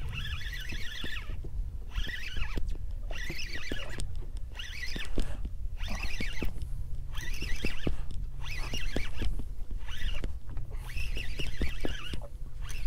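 Spinning reel cranked in short spurts, about one a second, its gears and line whirring as a fish is reeled up from the bottom, with a few light clicks. A steady low rumble runs underneath.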